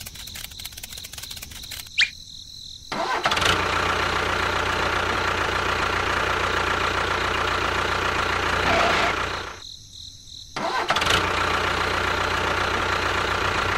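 Tractor engine starting and running steadily, with a sharp click just before it starts. The engine cuts out briefly about ten seconds in, then starts again and runs on.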